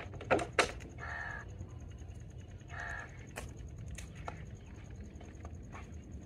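A crow cawing twice, about two seconds apart, the first call about a second in. Just before it come two sharp knocks, the loudest sounds, and a few fainter clicks follow later.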